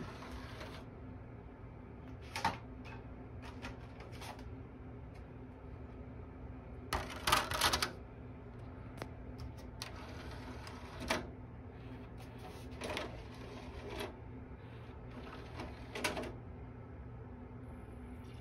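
Pioneer PDR-W37 three-disc changer's tray and loading mechanism working: a series of short mechanical clicks, whirs and clunks as the tray opens and closes and the changer loads a disc to read its table of contents. The loudest clatter comes about seven seconds in, over a steady low hum.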